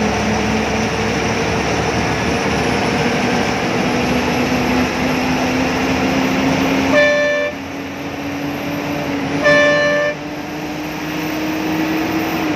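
Steady engine and road noise in the cab of a moving Rajadhani AC bus, the engine note climbing slowly as it gathers speed. A horn sounds twice in short blasts, about seven seconds in and again about two and a half seconds later.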